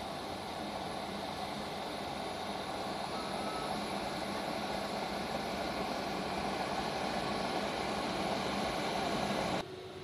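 Steady aircraft engine roar, growing slightly louder, then cutting off abruptly near the end.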